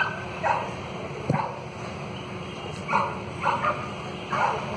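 A dog barking repeatedly: about seven short, sharp barks at irregular intervals.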